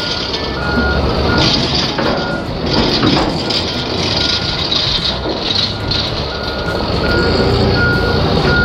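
Forklift backup alarm beeping steadily, about one and a half beeps a second, over the forklift's engine running as it reverses, pulling the spreader's conveyor cartridge out of the hopper.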